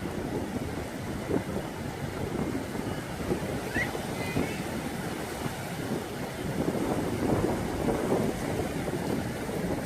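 Sea waves washing on the shore with wind buffeting the microphone, a steady rushing noise that swells a little in the second half.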